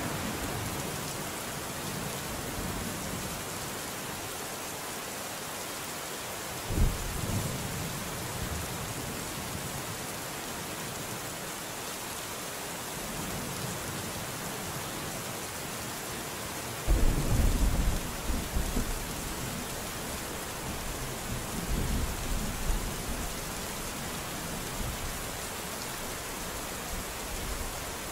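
Steady rain hissing, with rolls of thunder: one about seven seconds in, a louder, longer one about halfway through, and a smaller one shortly after.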